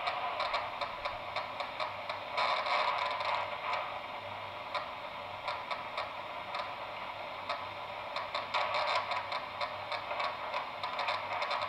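Sensory-neuron action potentials from an isolated cockroach leg, played through a bioamplifier as irregular clicks and pops over a steady hiss. There are bursts of denser crackling about two and a half seconds in and again near nine seconds, where the neurons fire in quick runs.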